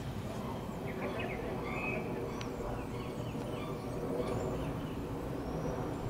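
Steady low rumble of a Boeing 737-200's Pratt & Whitney JT8D jet engines passing overhead. Birds chirp over it in short rising-and-falling calls.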